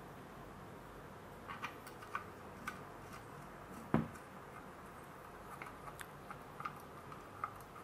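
Scattered small clicks and taps of hands handling smart door lock parts and plugging in its cable connector, with one sharper knock about four seconds in.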